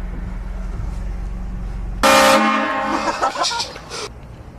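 Vehicle-mounted air train horn blasting about two seconds in for roughly two seconds: a loud chord of several tones that starts suddenly. Before it there is a steady low rumble from the vehicle.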